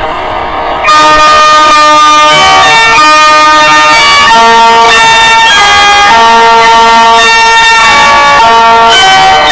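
Loud emergency-alert siren of a made-up EAS broadcast: several tones sound together like a chord and jump to new pitches every half second or so. It comes in at full loudness about a second in, after a brief quieter buzz.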